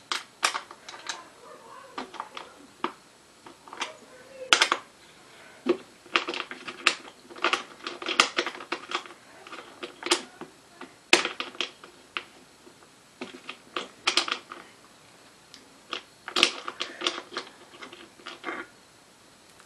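Irregular metallic clicks and clinks, some with a short ring, from a small hand tool working bolts into the metal bracket under an office chair seat as they are tightened.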